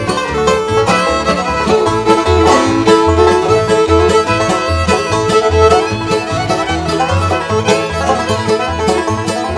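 Bluegrass band playing an instrumental break between sung verses: fiddle carrying the melody in long bowed notes, over banjo, guitar rhythm and upright bass notes on the beat.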